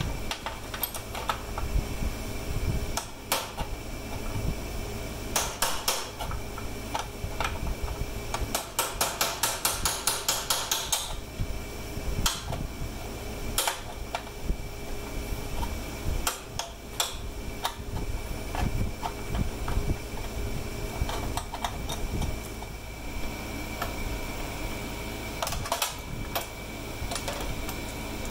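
Hand tools working on metal: scattered sharp clicks and knocks, with a quick run of rapid clicks about nine seconds in, over the steady hum of a shop fan.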